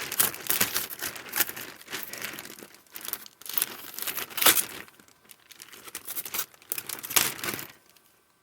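Heat-sealed plastic packaging bag crinkling and being torn open by hand, in irregular sharp rips and rustles that stop near the end.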